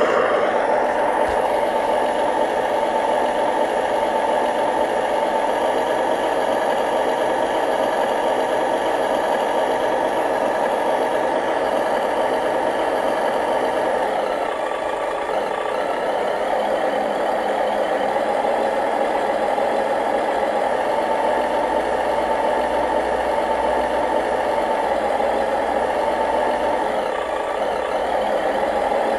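Remote-control model truck running: a steady, continuous motor-and-gear whine, easing off slightly twice.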